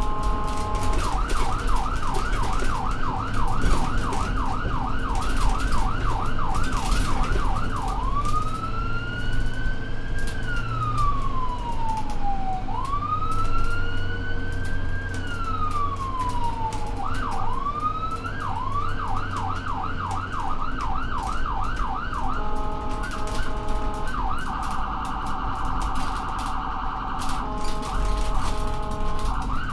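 Ambulance's electronic siren while driving, switching between modes: a fast yelp of about three sweeps a second, then a slow wail rising and falling twice, then the yelp again, then a stepped two-tone and a very rapid warble before the yelp returns. The vehicle's engine hum and road noise run underneath.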